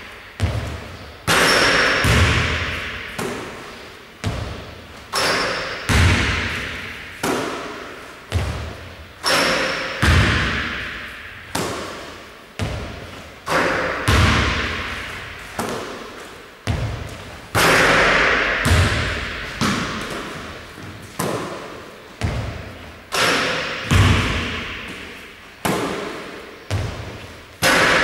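A basketball thudding repeatedly on a hardwood gym floor and off the hoop, about one impact every second. Each impact is followed by a long echo in the large hall.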